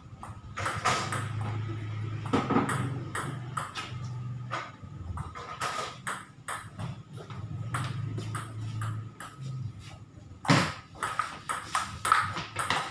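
Table tennis ball clicking: light scattered bounces while the players reset between points, then from about ten seconds in a quick rally of sharp bat hits and bounces on the table.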